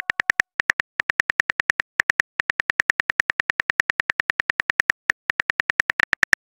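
Simulated phone-keyboard typing sound effect: rapid, even key clicks at about eight or nine a second, broken by a few brief pauses, as a text message is typed letter by letter.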